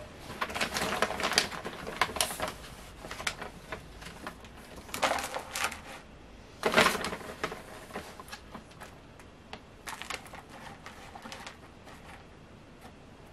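Tropical substrate being scooped and tipped into a small plastic tub: scratchy, crackly rustling in several irregular bursts, the loudest about seven seconds in, fading out near the end.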